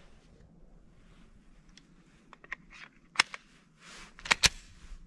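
Handling noise from a 10mm semi-automatic pistol between shots: a scatter of sharp metallic clicks and clacks. The loudest comes about three seconds in, and two more come close together near four and a half seconds.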